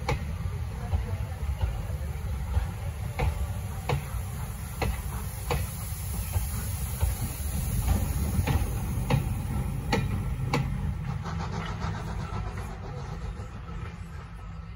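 Steam locomotive working a train away, a low rumble with sharp beats roughly every 0.8 s, quickening slightly near the end. A hiss of steam rises through the middle as the exhaust billows up.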